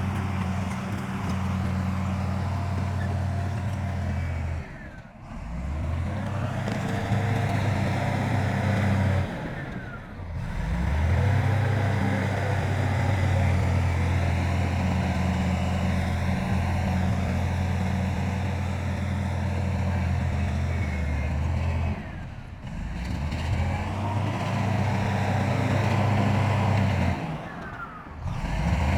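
Heavy diesel engines of construction machinery running steadily with a deep hum, the sound breaking off and resuming about four times.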